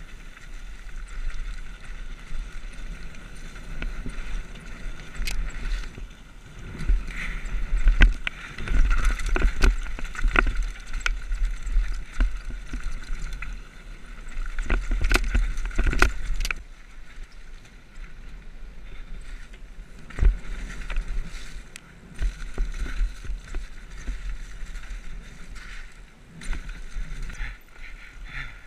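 Mountain bike descending a rough dirt trail, heard from a camera mounted on the rider: wind buffeting the microphone and tyres rolling over dirt, with a steady high buzz and frequent sharp knocks and rattles from the bike over bumps, busiest around eight to ten seconds in and again around fifteen seconds in.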